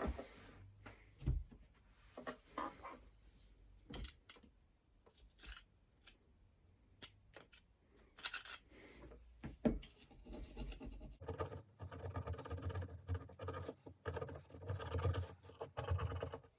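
Scattered clicks and scrapes of small metal bicycle hub parts being handled and cleaned. About eleven seconds in, a steady low hum starts and runs under the scraping.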